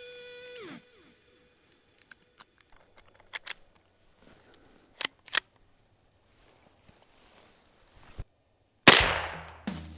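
One loud gunshot near the end, a sharp crack whose echo trails off over about a second, taken at squirrels. Before it, scattered faint ticks and snaps in a quiet wood, and a held guitar note from background music bends down in pitch and cuts off just under a second in.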